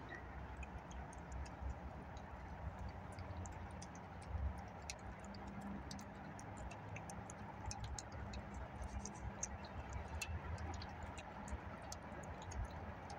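Cat eating beef pâté from a ceramic bowl: irregular small clicks and smacks of chewing and licking, over a steady low rumble in the background.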